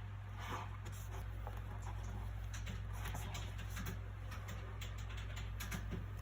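Soft paper sounds from handling a book, faint scattered rustles and small ticks, over a steady low background hum.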